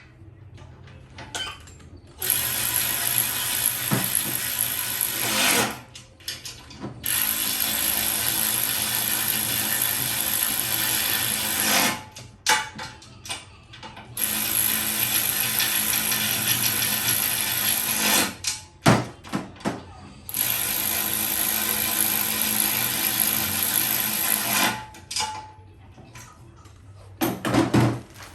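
Handheld electric power tool running in four stretches of about four seconds each, with short knocks and clatter of handling between them.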